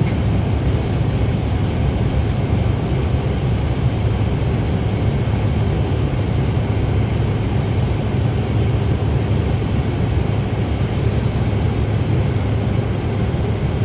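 Steady low rumble of a Bombardier CRJ900 jet's cabin during the climb after takeoff: its two rear-mounted turbofan engines and the rush of air past the fuselage, heard from inside the cabin.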